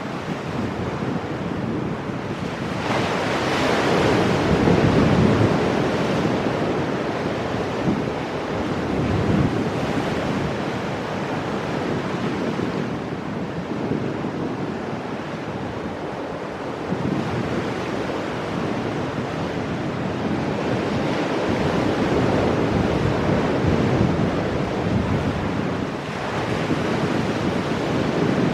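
Ocean waves breaking on rocks and washing back, a continuous surf noise that swells and eases with each set, loudest a few seconds in and again past the middle, with wind buffeting the microphone.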